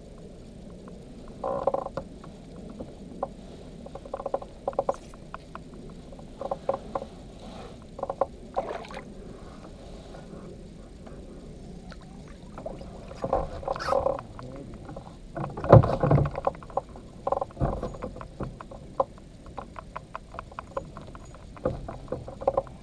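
Fishing gear being handled in a small boat: irregular clicks and knocks with runs of rapid clicking, typical of a reel being cranked. One louder, deeper thump comes a little past the middle.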